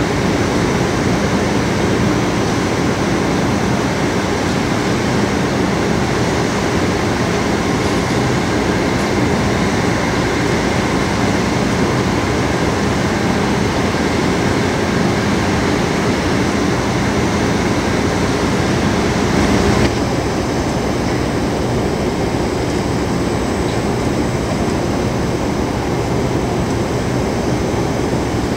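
Steady low drone of a large cruise ship's machinery running as it berths, a constant hum under an even wash of noise. The low hum eases and the sound drops slightly quieter about 20 seconds in.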